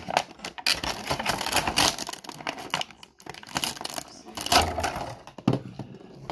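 Clear plastic packaging bag crinkling as it is handled and pulled open, in quick crackles, loudest about a second in and again around four and a half seconds in.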